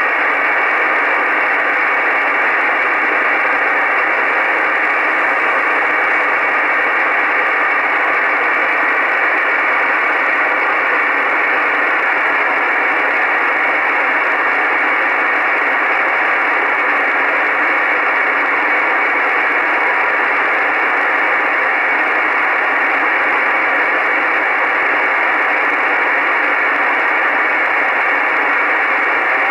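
Icom IC-R8500 shortwave receiver in upper-sideband mode putting out a steady hiss of band static, with no signal on the channel.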